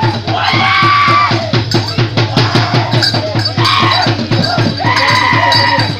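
Percussion accompanying a Kawasaran war dance: drums beaten in a fast steady rhythm, about four beats a second, with long held shouted calls rising over it several times.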